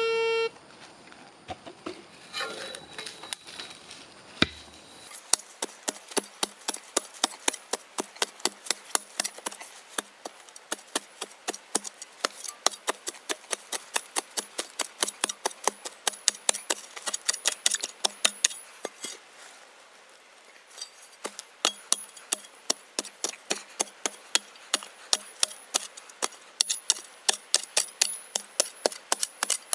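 A metal detector's steady signal tone cuts off about half a second in. Then a short-handled hand pick chops into dry, needle-covered soil again and again, about two to three strikes a second, with a short pause about two-thirds of the way through.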